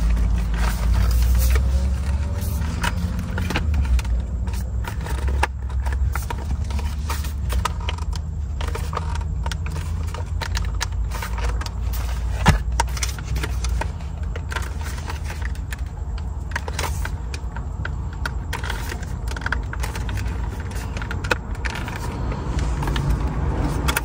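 Plastic steering-wheel trim and clips being handled and fitted together: scattered small clicks and rattles, with one sharper click about twelve seconds in. A steady low rumble runs underneath.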